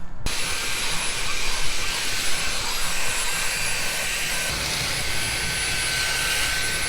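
Dyson V7 cordless stick vacuum running steadily: a constant rush of suction with a thin, steady high whine.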